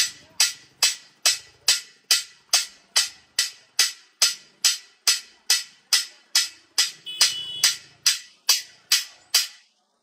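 A large truck-mounted DJ sound system playing a sound-check beat: a single sharp, clap-like percussive hit repeated steadily about two and a half times a second, mostly treble with little bass. The hits stop just before the end.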